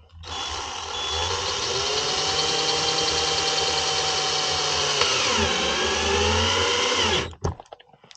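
Power drill/driver running for about seven seconds, driving in a curtain popper fastener. Its pitch drops about five seconds in, and it stops about seven seconds in.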